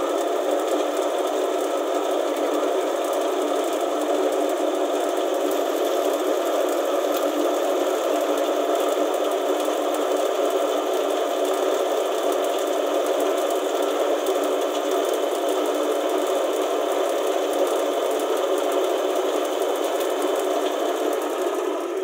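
Diesel transfer gear pump and flow meter running, a steady continuous mechanical whir as diesel is dispensed.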